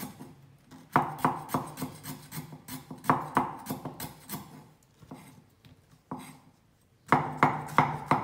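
Cleaver slicing lemongrass stalk on a thick round wooden chopping board: short runs of quick, sharp knocks of the blade hitting the wood, with brief pauses between runs.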